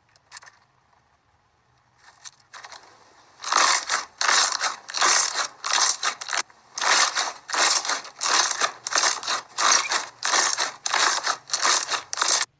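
Slime being squeezed and pressed by hand, with short crackling squishes in a quick, even rhythm of about two or three a second, starting a few seconds in.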